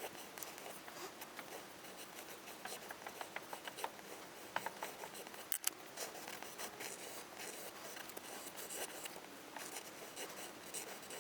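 Pencil sketching on paper: many short, scratchy strokes, with one sharper tap about five and a half seconds in.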